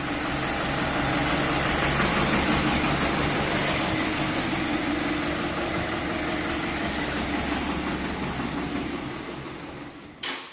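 A truck's engine running as it is brought in, growing louder over the first couple of seconds, holding, then fading near the end. Two sharp clicks sound just before the end.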